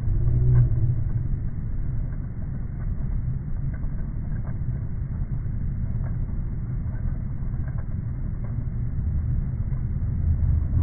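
Low, steady rumble of wind and clothing rubbing on a body-worn camera's microphone during a walk, with faint ticks scattered through.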